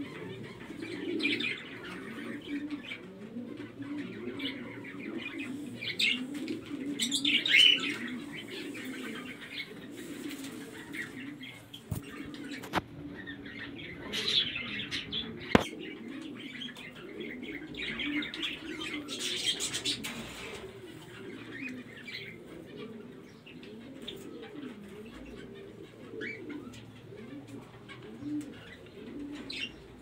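A flock of white ringneck doves cooing in a continuous low, wavering chorus. Bursts of higher chirping and wing flapping come every few seconds, and there are a few sharp clicks midway.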